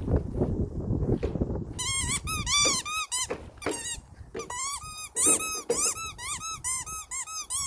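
Squeaky toy ball squeaking over and over as a puppy chews it: a quick run of short rising-and-falling squeaks, several a second, starting about two seconds in with a brief lull in the middle. Before the squeaks, low rustling noise.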